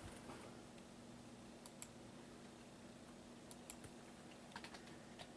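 Near silence with a few faint, scattered clicks of a computer keyboard being typed on.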